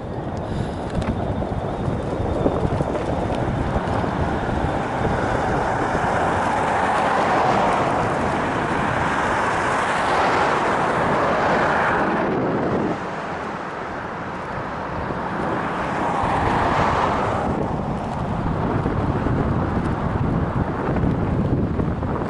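Wind rushing over the microphone of an action camera on a moving bicycle, mixed with road traffic going by; the noise swells twice, once around halfway through, dropping off suddenly, and again a few seconds later.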